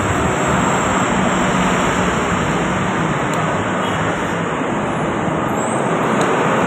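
Steady, even rushing background noise with no break, with a few faint light clicks from spoons on the bowls.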